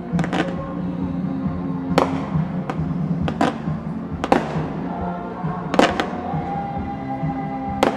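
Fireworks exploding: a string of about nine sharp bangs at irregular intervals, some in quick pairs, over music playing throughout.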